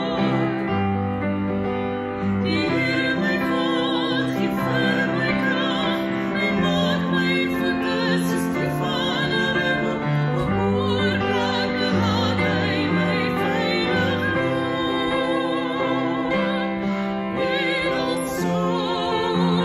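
A man and a woman singing an Afrikaans worship song together with vibrato, over a steady instrumental accompaniment.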